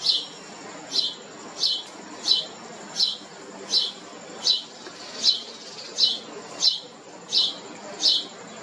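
A small bird chirping steadily, with short, high notes that drop in pitch, repeated about every 0.7 seconds.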